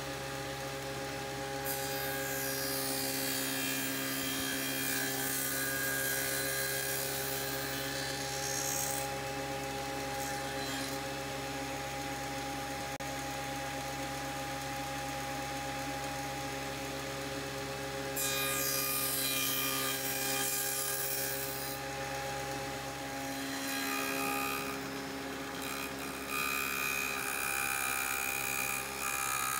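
Table saw running with a steady motor hum while a softwood board is fed through the blade; the cutting noise swells three times over the hum as the blade bites into the wood.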